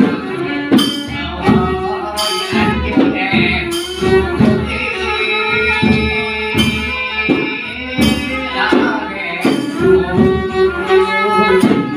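Kantruem, Khmer Surin folk music: percussion strokes keeping a steady beat under a pitched melody line, with singing.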